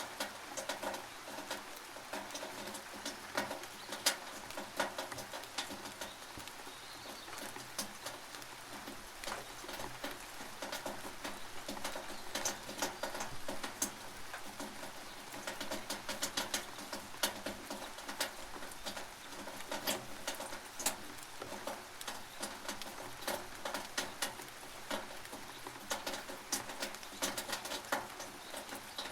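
Rain dripping and pattering on a tin roof: irregular sharp drop ticks over a steady hiss of rain.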